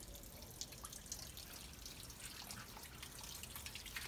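Faint, irregular drips and trickling of water draining quickly through a desert rose's freshly soaked potting mix and out of its pot.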